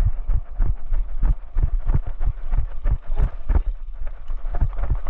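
Footsteps of a player running over the field, a steady beat of about three strides a second, each with a heavy low thump.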